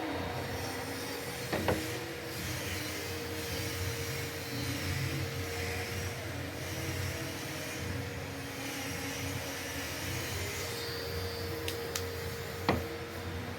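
A steady motor hum with a constant tone, broken by a few sharp knocks, one about a second and a half in and a cluster near the end.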